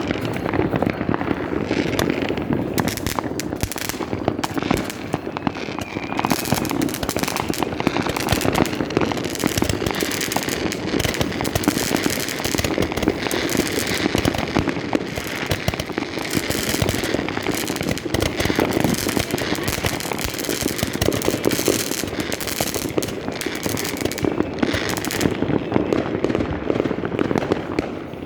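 Dense, continuous New Year's Eve fireworks: many firecrackers and rockets banging and crackling at once, with no pause.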